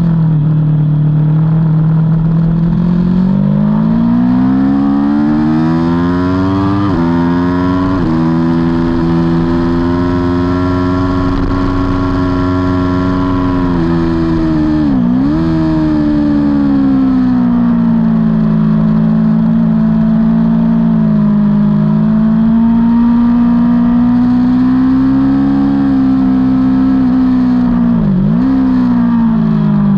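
Aprilia Tuono V4's V4 engine at racing speed, heard on board. The engine pitch climbs over the first several seconds with short breaks at gear changes, then holds high. It dips sharply and recovers twice, once in the middle and once near the end.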